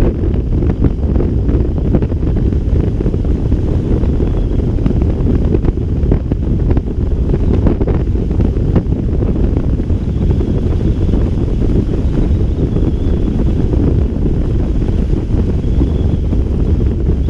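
Wind rushing over the microphone in flight under a paraglider: a steady, loud, low rumble of airflow.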